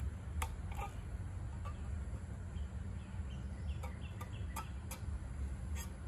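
Scattered sharp clicks and knocks of camp gear being handled over a steady low rumble, with a few faint bird chirps in the middle.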